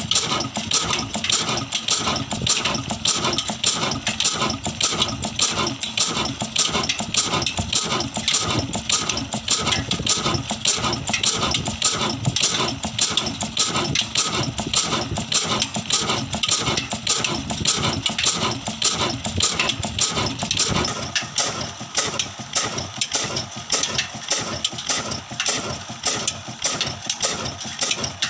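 Old single-cylinder horizontal "black" diesel engine with a large flywheel, running steadily with a rapid, even beat.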